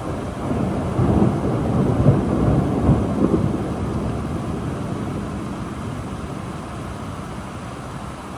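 A roll of thunder over steady rain: it swells about half a second in, peaks a few times over the next three seconds, then rumbles away slowly.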